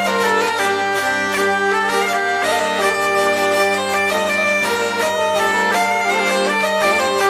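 Bagpipes playing a folk dance tune: a melody of held notes over a steady, unbroken drone.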